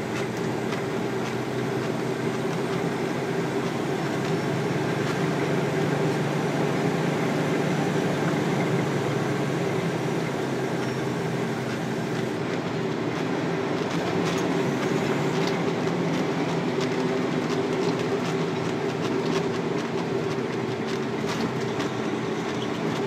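Heavy truck driving, heard from inside the cab: a steady engine drone with road noise, and scattered clicks from about halfway through.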